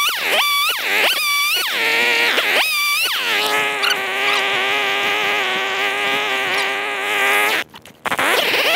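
Electric chainsaw cutting logs: the motor's whine dips in pitch and recovers several times as the chain bites into the wood, then runs at a steady pitch for a few seconds. Near the end it cuts out for about half a second and starts up again.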